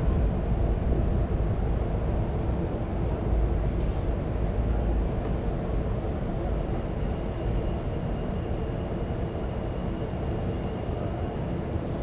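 Steady low rumble of passing vehicles, with a faint thin high whine joining about halfway through.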